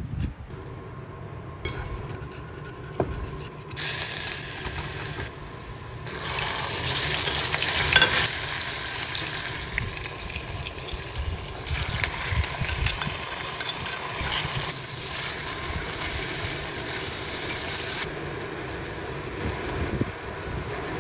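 Food sizzling and frying in a hot pan while being stirred, in several short clips that start and stop abruptly. The sizzle is louder from about six seconds in.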